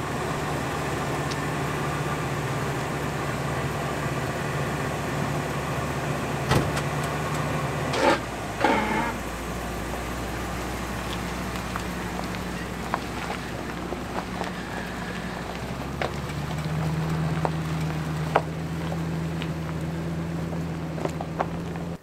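Lifted Ford Excursion's engine running steadily. Its low note changes about eight seconds in and rises a little around sixteen seconds.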